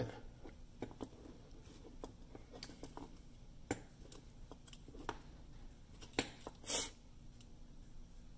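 Faint scattered clicks and taps of a hand sewing awl's needle and knurled metal chuck working through a leather belt. About two thirds of the way in comes a short rasping swish as the waxed nylon thread is pulled tight through the stitch.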